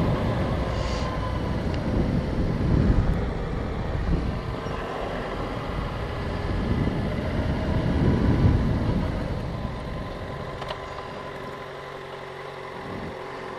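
Motorcycle engine pulling in second gear at low parking-lot speed, mixed with wind rush on a helmet-mounted microphone. The engine note swells and eases a couple of times, then settles quieter and steadier near the end as the bike slows.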